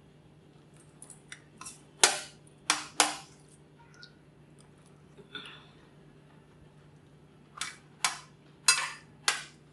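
Steel spoon clicking and scraping against a stainless steel plate while eating: a few light clicks about a second in, three louder clinks between two and three seconds, and a run of about five more near the end.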